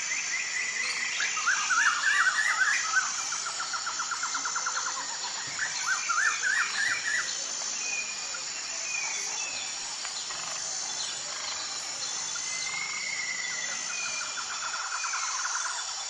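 Small birds chirping and singing in quick trills, in bouts, over a thin high note that repeats evenly a little faster than once a second.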